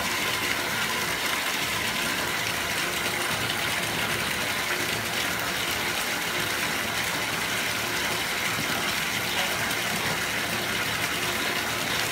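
Steady rushing hiss of water in a bathtub, even and unbroken.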